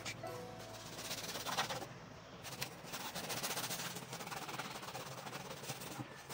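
Rapid, steady scrubbing on textured car interior trim as the built-up dirt is cleaned off.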